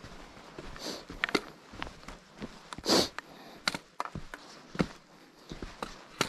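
A hiker's footsteps, irregular steps and scuffs, with one loud sniff about three seconds in.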